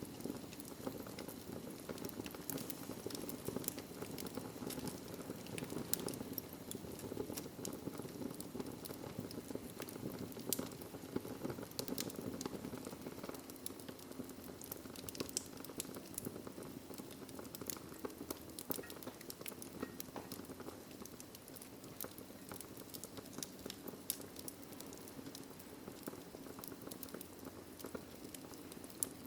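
Wood fire burning in a fireplace: a steady soft rush with frequent small crackles, pops and snaps, a few louder pops standing out now and then.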